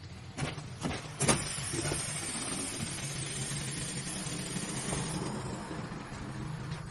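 Three sharp knocks, then a steady hiss over a low motor hum for about five seconds.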